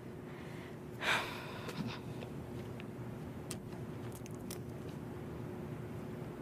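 Quiet room tone with a faint steady hum; about a second in, a woman takes a short, sharp breath, followed later by a few faint mouth clicks.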